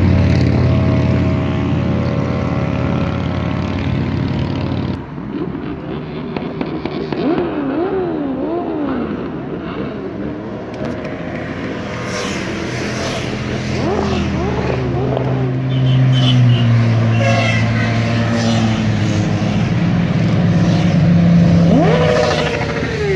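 A procession of motorcycles riding past, their engines running, with the pitch swinging up and down again and again as riders rev. The sound changes abruptly about five seconds in.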